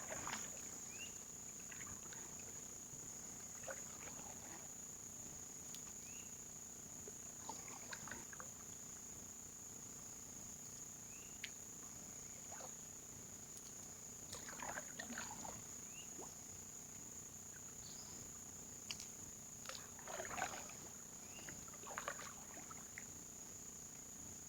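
Steady high-pitched drone of swamp insects, with scattered splashes and light knocks of a canoe paddle in the water and against the hull, bunched about a third of the way in and again near the end.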